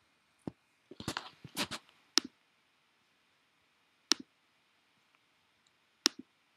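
Computer mouse button clicks: single sharp clicks a second or two apart, with a busier cluster of clicks and rustling around a second in.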